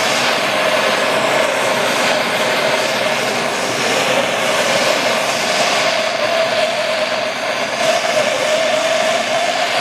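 Propane torch flame burning steadily, turned up high: a noisy, even hiss with a steady tone running through it, heating an aluminum joint to brazing temperature.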